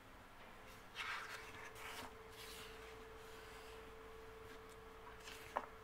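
Paper sticker-book page being turned and smoothed flat by hand: soft rustling and rubbing about a second in and again around two seconds, with a sharp tick near the end. A faint steady hum sits underneath from about a second in.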